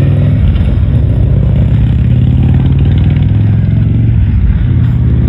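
Motorcycle engines running loud and low as touring motorcycles ride off down the road, the exhaust note steady with a slight dip and swell near the end.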